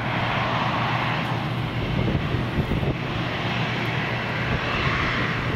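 Boeing 737-800's CFM56-7B jet engines running as the airliner taxis past, a steady rushing hiss.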